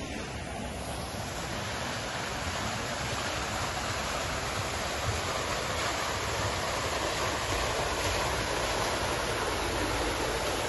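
Water of a large public fountain splashing and pouring down into its basin, a steady rushing that grows gradually louder.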